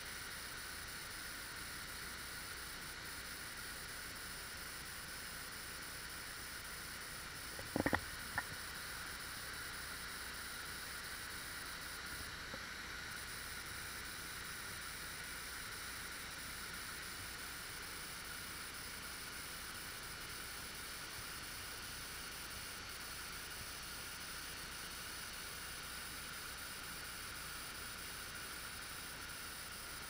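Steady, even hiss throughout, with two short knocks about eight seconds in, half a second apart.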